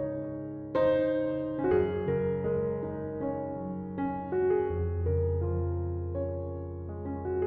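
Background piano music: a slow, gentle melody over sustained chords, with a deep bass note held from about halfway through.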